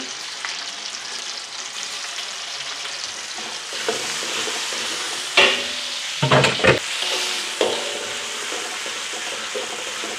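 Blended dried-chili paste sizzling steadily in hot oil in a wok, stirred with a metal spatula, with a few sharp knocks about halfway through. The paste is frying down until the oil separates from it.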